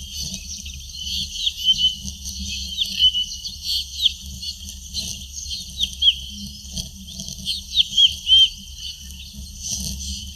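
Birds calling: a busy run of short, high chirps, many of them curving downward in pitch, with a few louder chirps near the end, over a steady low rumble.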